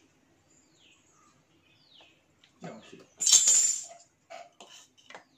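Faint bird calls, short falling chirps, in the first half. Then a few clicks and a loud scrape lasting under a second, followed by several light knocks, as the plastic stage parts of a submersible borewell pump are handled and fitted on the pump shaft.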